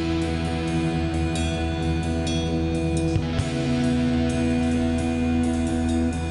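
Background music: electric-guitar rock with sustained chords changing about every second and a steady beat.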